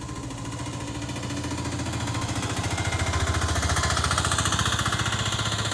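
A motor running with a fast, even pulsing rattle, growing louder over the first few seconds.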